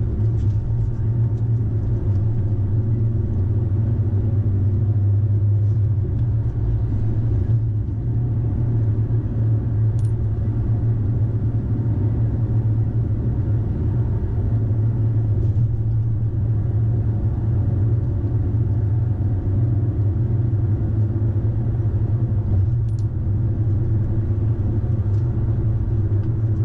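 Steady low rumble of a car driving at about 40 mph, heard from inside the cabin: road and engine drone.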